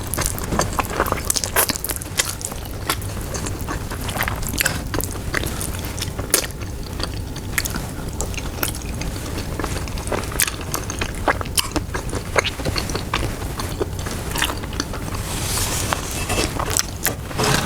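Close-miked eating: chewing and biting of sticky braised pork leg (pata tim), with many short, wet mouth clicks and smacks.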